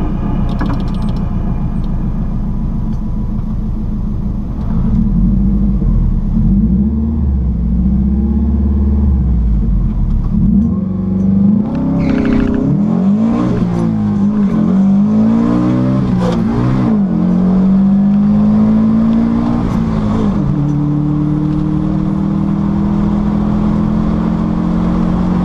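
Subaru engine of a VW Beetle drag car heard from inside the cabin: running steadily on the start line, then launching about eleven seconds in and accelerating hard, its pitch climbing and dropping several times as it shifts up through the gears, before settling to a steadier drone as it eases off past the finish.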